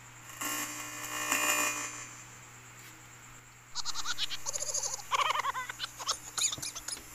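A short burst of hiss and crackle from the microphone line, then, about halfway through, a voice through the karaoke player's microphone in short broken phrases with a fast-wavering pitch.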